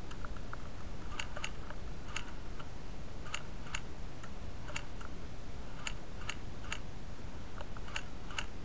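Airsoft guns firing single shots at a distance: faint, sharp clicks at irregular intervals, often in quick pairs, over a steady low rumble.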